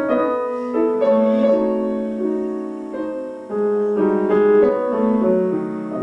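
Grand piano playing a melodic phrase: notes struck one after another over held chords, each left to ring into the next.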